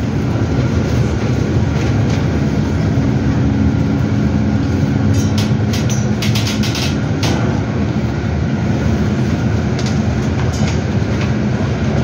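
Cabin noise of a CAIO E-Millennium electric bus on an Eletra chassis driving slowly over cobblestones: a steady low rumble of tyres and body, with rattles and clicks from the fittings, busiest about five to seven seconds in.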